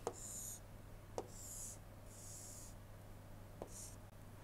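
Stylus scratching across a pen tablet in about four short drawing strokes, faint, with a light tap as the pen touches down three times.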